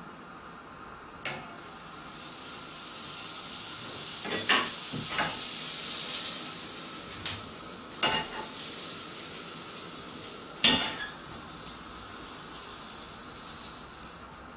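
Butter sizzling as it melts in a hot frying pan: a knock as it goes in, then a hiss that swells over the first few seconds and slowly dies down, with several sharp clicks and knocks of a utensil against the pan.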